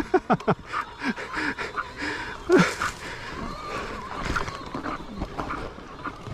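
A person panting and grunting hard with effort, with short falling vocal gasps near the start and again about two and a half seconds in.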